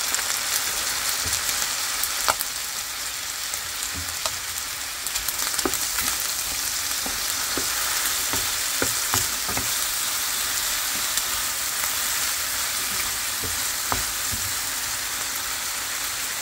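Small chopped chicken pieces sizzling in hot oil and soy sauce in a nonstick frying pan, stirred with a wooden spatula. The spatula knocks against the pan a few times.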